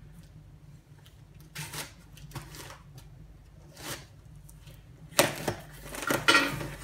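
Cardboard parcel being opened: a few short scratches as the packing tape on top is cut, then louder tearing and rustling as the box flaps are pulled open about five seconds in.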